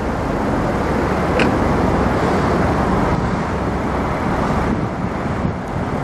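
Steady rumble of road traffic on a large bridge close by, with no horn sounding.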